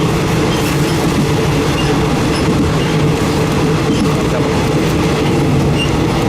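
Thai Railway third-class passenger carriage running on the line, a steady loud rumble of wheels on the rails with a low hum underneath.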